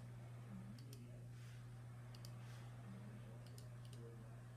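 Faint clicks of a computer mouse and keys, several coming in quick pairs, as a list is copied and pasted, over a low steady hum.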